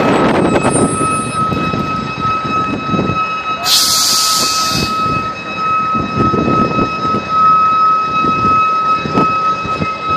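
Heavy vehicles idling by the roadside, a fire engine among them: a steady high-pitched whine throughout over an uneven low rumble, with a short burst of hissing about four seconds in.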